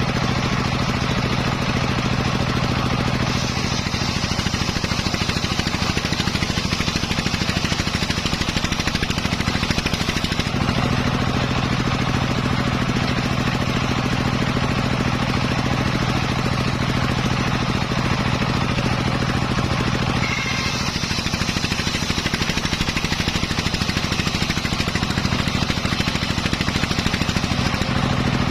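Engine-driven homemade circular saw running steadily while its blade cuts teak wood. The cutting noise comes in twice, from about three to ten seconds in, and again from about twenty seconds in until near the end.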